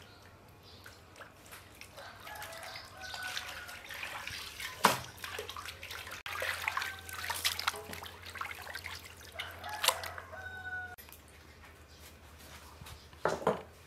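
Water sloshing and splashing as hands knead and rinse raw pork intestine in a metal basin, with chickens clucking in the background. Near the end, a couple of sharp knocks.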